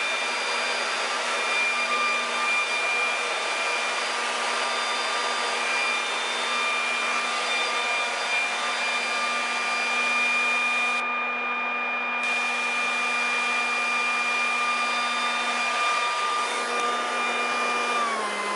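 Leaf blower running steadily at full speed with a high motor whine, blowing dust out of a refrigerator's condenser compartment. Its whine starts to drop in pitch right at the end as it is switched off and spins down.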